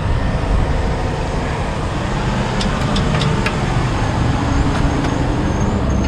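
Semi truck engine idling steadily, a continuous low rumble, with a few light clicks about halfway through.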